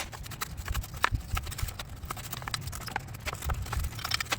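Irregular clicks and light knocks of hand work cleaning oily gunk off a Stihl string trimmer's muffler.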